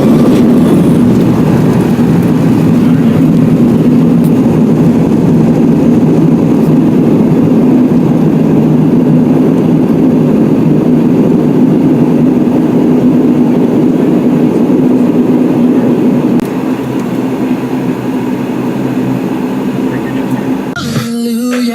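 Loud, steady cabin noise of a moving vehicle: an engine hum under a constant rush, easing slightly about 16 seconds in. Music comes in right at the end.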